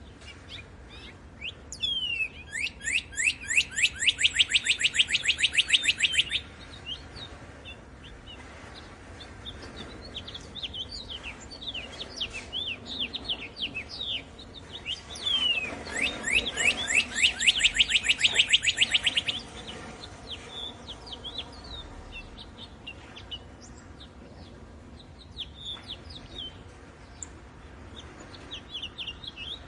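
Small songbirds chirping with scattered short calls, and twice a loud rapid trill of fast repeated notes lasting about four seconds each, one near the start and one in the middle.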